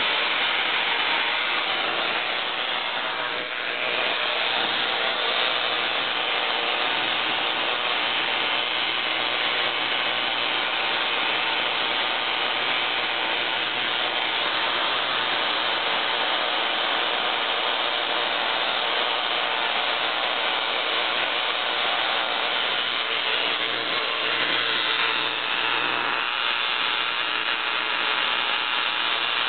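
Homemade spark-gap Tesla coil, powered by a 6 kV 30 mA neon sign transformer, running: a loud, steady, rasping electrical buzz from the spark gap and streamers, with a low hum under it, starting abruptly.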